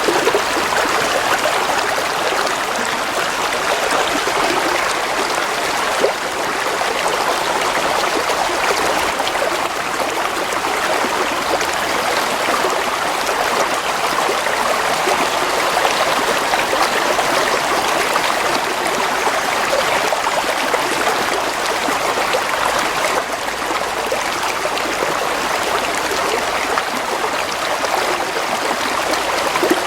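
A shallow stream flowing and trickling steadily over stones.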